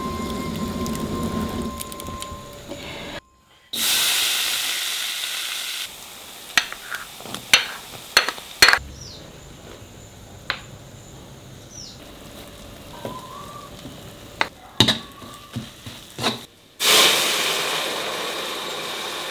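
Food sizzling in hot oil in a pan, with scattered pops and clicks. The sizzle comes in louder about four seconds in and again near the end.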